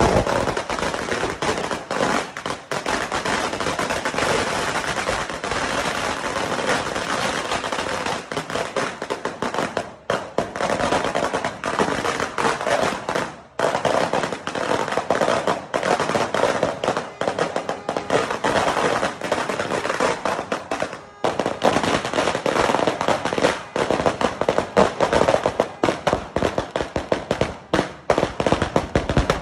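A Renelyn Thunder Judas belt, a 1000-round string of firecrackers, going off as a rapid, unbroken run of bangs, with a few brief lulls along the way.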